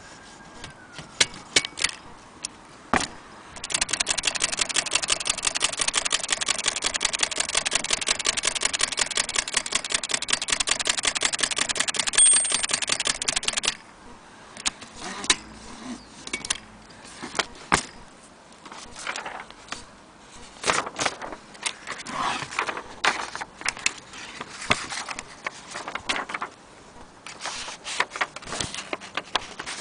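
Aluminum Blickensderfer Featherweight typewriter being worked: scattered mechanical clicks and clacks, with a dense, fast, even rattle of clicks starting about four seconds in and stopping abruptly about ten seconds later.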